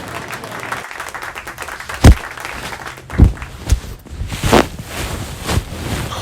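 Crowd applause, a dense patter of clapping. Five louder sharp knocks or claps stand out above it, the loudest about two seconds in.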